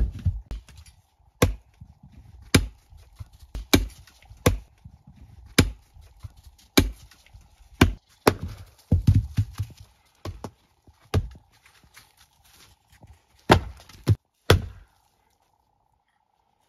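Axe splitting firewood logs on a chopping block: sharp chopping strokes, roughly one a second and well over a dozen in all, stopping shortly before the end.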